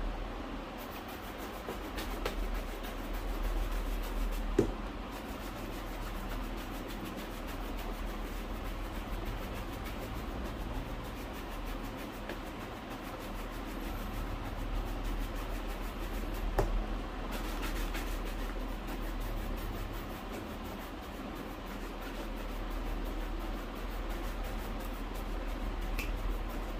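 Rubbing and brushing strokes on a leather shoe during polishing, a steady scratchy texture broken by a few sharp clicks, over a constant low hum.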